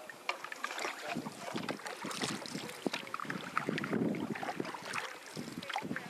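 Canoe paddles dipping and pulling through calm river water in irregular strokes, with small splashes and drips, and some wind on the microphone.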